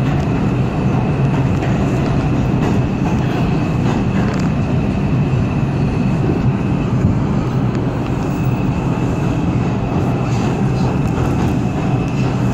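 New York City subway 4 train running through a tunnel: a steady rumble of wheels and motors, with a thin high whine held over it.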